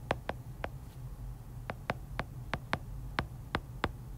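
Stylus tip tapping and clicking on an iPad's glass screen while handwriting, about a dozen irregular sharp ticks with a pause of about a second near the start, over a steady low hum.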